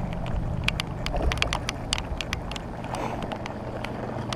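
Heavy rain: irregular sharp taps of raindrops striking the camera and boat, over a steady low hum.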